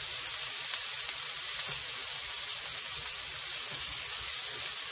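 Balls of ground beef sizzling steadily on an electric flat-top griddle heated to about 375°F, with light crackles through the hiss.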